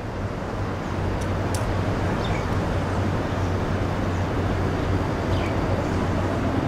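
Steady outdoor city background: a low, even rumble like distant traffic, with a few faint short high chirps over it.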